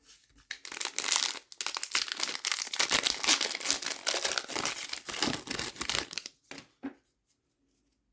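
Foil wrapper of an Upper Deck hockey card pack crinkling and tearing as it is handled and opened, for about six seconds. A couple of light taps come near the end.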